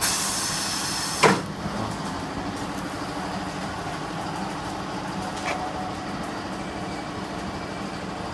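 Pneumatic sheet-metal folding machine cycling: compressed air hisses through the foot-pedal valve and air cylinder for about a second, ending in a sharp metal clank as the folding beam reaches its stop. A steady low hum follows, with one faint click about five seconds later.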